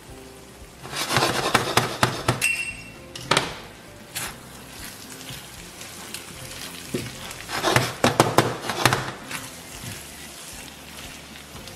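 Wooden spoon stirring thick risotto in a stainless steel pan, knocking and scraping against the pan in several short bursts, the busiest about a second in and again near eight seconds.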